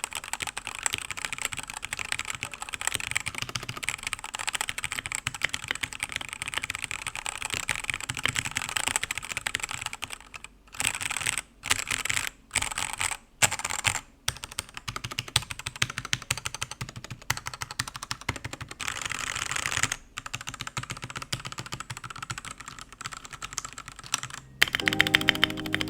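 Redragon UCAL K673 Pro 75% mechanical keyboard being typed on fast, a dense run of key clicks broken by a few short pauses about halfway through. Music comes in near the end.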